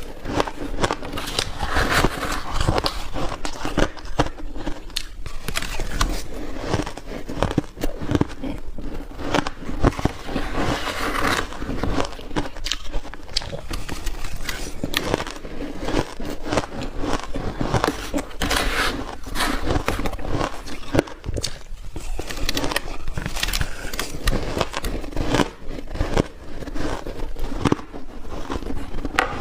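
Close-up crunching of soft, powdery freezer-frost ice being bitten and chewed, a dense stream of crisp crackles with one bite after another.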